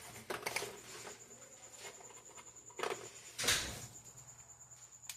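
Small metal clicks and scrapes of a screwdriver working at the snap ring on an AC compressor clutch, with a louder scrape about three and a half seconds in.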